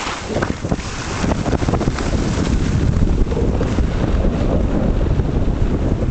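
Wind buffeting the microphone of a camera carried by a skier going downhill, a heavy steady rumble, with skis scraping and rasping over packed, groomed snow.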